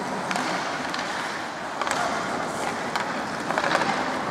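Ice hockey skates scraping and carving across the ice, with several sharp clacks of sticks and puck.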